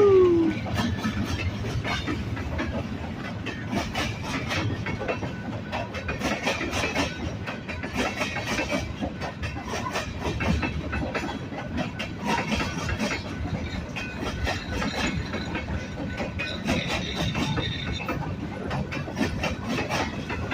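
Train cars rolling past, their wheels clicking over rail joints over a steady rumble. Right at the start the tail of the lead locomotive's horn drops in pitch and fades out within half a second.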